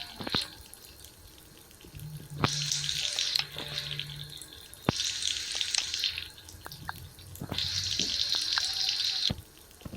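Water running or pouring in four separate gushes of one to two seconds each, spaced a couple of seconds apart, as water is filled in for a bath.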